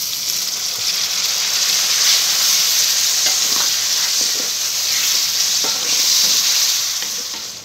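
Chopped tomatoes and green chillies sizzling loudly as they hit hot oil in a metal kadhai of frying potatoes over high heat, with a spatula stirring and scraping through the pan. The sizzle eases near the end.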